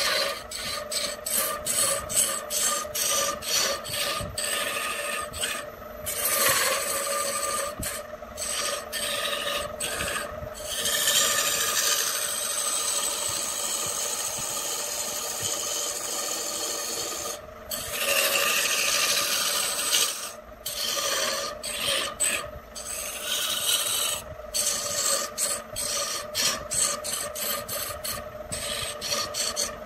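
A turning tool cuts a spinning wood blank on a wood lathe, with the hiss and scrape of shavings tearing off. It comes as a run of short strokes with brief pauses, then a longer unbroken cut through the middle. The lathe's motor hums steadily underneath.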